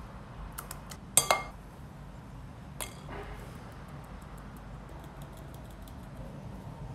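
Metal kitchen utensils, a wire whisk and a mesh sieve, clinking against a glass mixing bowl: a few light clicks, one loud ringing clink about a second in and another near three seconds. After that comes a faint soft hiss with many small quick ticks as the sieve is shaken to sift flour.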